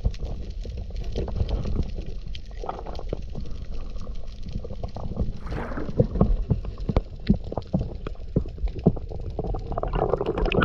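Underwater ambience heard through a GoPro housing: a constant low rumble of water with a dense crackle of sharp clicks, and a burst of bubbling near the end.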